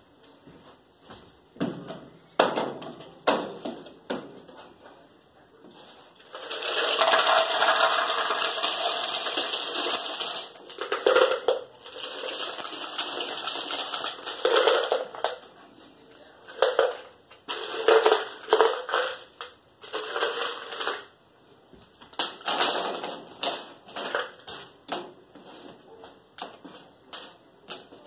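Handling noises: many irregular knocks, scrapes and crunches, with a continuous rustling stretch of about four seconds near the start.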